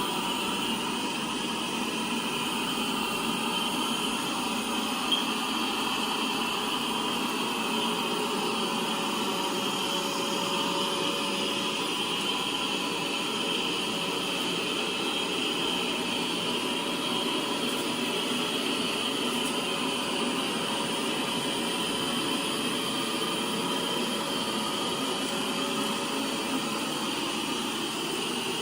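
Lefant M3 robot vacuum running steadily as it zone-cleans powder off the floor: an even suction-fan hiss with a steady high whine, and one brief tick about five seconds in.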